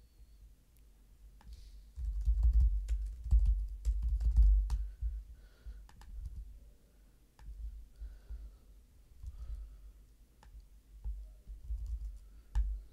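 Typing and clicking on a computer keyboard: scattered sharp keystrokes with dull low thumps, busiest between about 2 and 5 seconds in, then sparser.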